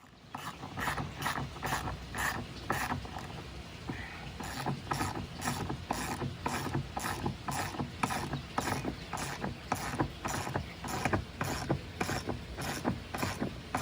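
Hand socket ratchet wrench clicking as it drives large lag screws into wooden 4x4s, a steady series of clicks about two to three a second.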